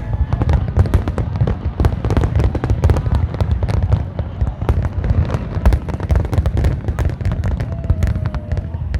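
A fireworks display going off in a dense, continuous barrage of bangs and cracks, several every second, over a steady low rumble.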